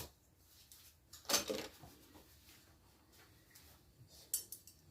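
Metal kitchen utensils being handled while being unpacked from a box: a short clatter about a second in, then a few light clicks near the end.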